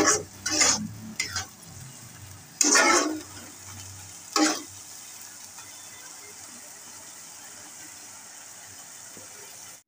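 Shredded ridge gourd, bottle gourd and ash gourd sizzling in oil in a blackened wok, with a metal spatula scraping and stirring the pan several times in the first half, then a steady sizzle.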